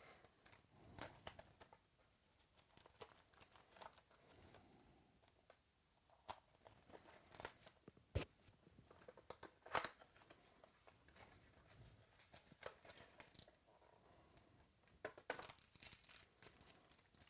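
Faint tearing and crinkling as a box of trading card packs is opened, with scattered light clicks and rustles throughout.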